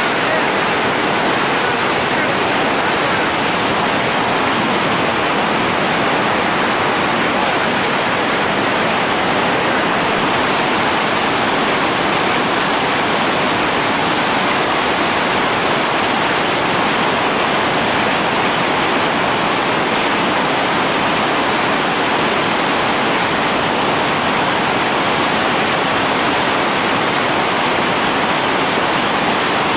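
Steady rush of whitewater rapids, a river pouring over and around boulders.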